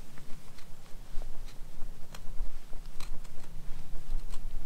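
Bushcraft knife blade carving a thin wooden stick, with irregular short, crisp snicks as it bites into the wood, over a steady low rumble.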